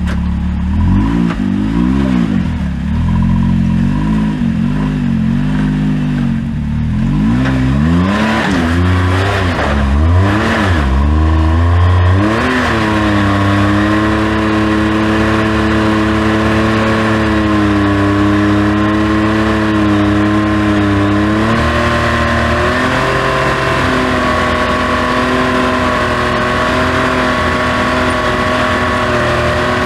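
Side-by-side UTV engine revving up and down in short swells for about the first twelve seconds, then held at steady high revs for the rest, with a brief dip about twenty-one seconds in.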